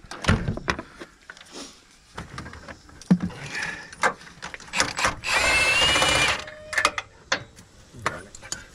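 Milwaukee M12 cordless impact wrench running in one burst of about a second, five seconds in, with a steady whine on top. Scattered metal clinks and knocks of the bolt and socket being handled come before and after.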